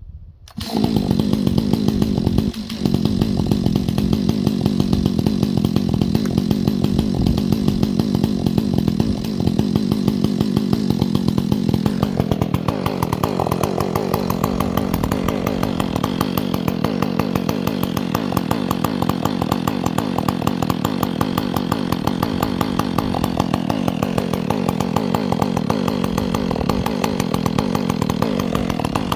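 Chainsaw running and cutting wood. It comes in suddenly about half a second in, then runs steadily, its note shifting a couple of times as the load on the chain changes.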